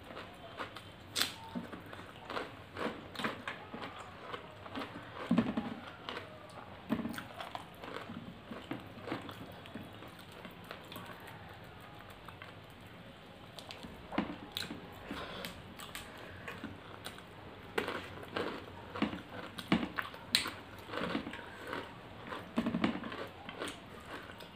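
Close-miked chewing and lip-smacking of people eating rice and curry by hand, with many irregular soft clicks and crackles as fingers work the food.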